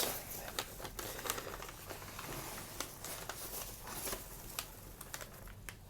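Hands rummaging through foam packing peanuts in a cardboard box: light rustling and crinkling with many small scattered clicks.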